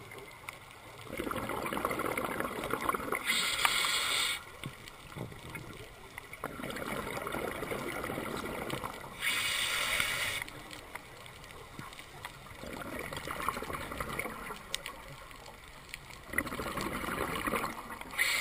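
A diver breathing through a scuba regulator underwater. There are two sharp, hissing inhales, about 3.5 and 10 seconds in, and longer bursts of bubbling exhaust between them.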